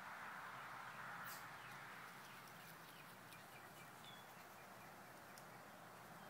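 Faint outdoor quiet: a steady low hiss, with a few faint quick bird chirps and ticks in the middle.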